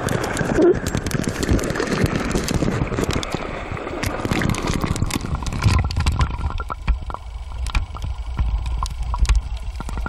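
Water sloshing and gurgling around a camera's waterproof housing just below the surface, heard from inside the housing. About six seconds in it turns to a muffled deep rumble with scattered sharp clicks as the camera sits fully underwater.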